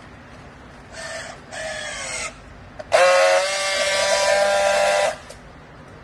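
Battery-powered handheld strapping tool on polypropylene strap: two short motor whirs about a second in, sinking in pitch as the strap pulls tight, then after a click a louder steady whine for about two seconds as it friction-welds the strap.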